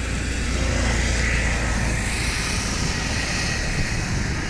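Steady low rumble and hiss of road traffic on the bridge, a little louder from about half a second in.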